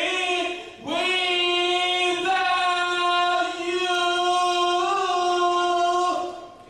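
A woman singing a gospel solo into a microphone. She holds one long, slightly wavering note for several seconds after a short break about a second in, then fades out near the end.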